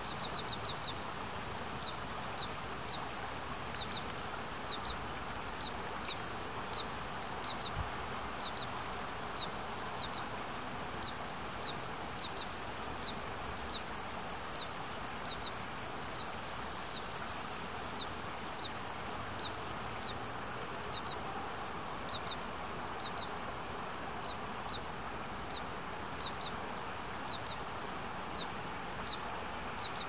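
Oriental greenfinch fledgling begging for food: short, thin, downslurred calls repeated one or two a second, often in quick pairs. A steady high hiss joins for about ten seconds in the middle.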